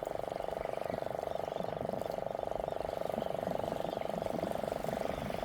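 A steady, fast-pulsing trill of frogs or toads calling, holding one pitch without a break.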